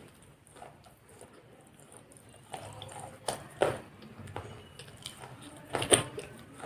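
A few sharp clinks and knocks of dishes and utensils being handled, the loudest pair about six seconds in.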